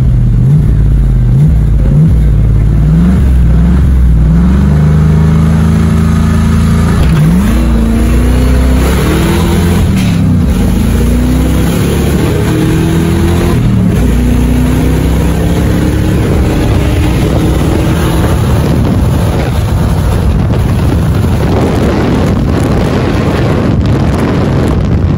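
V8-swapped Ford Ranger pickup accelerating hard from a standing start in a drag race, heard from inside the cab: the engine pitch climbs and drops back at each gear change. Near the end the engine sound gives way to steady wind and road noise at speed.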